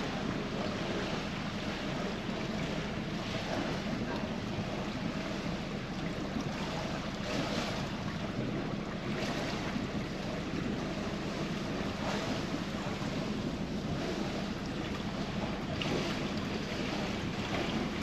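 Motor yacht under way at low speed: a steady engine hum with water rushing along the hull and wind on the microphone.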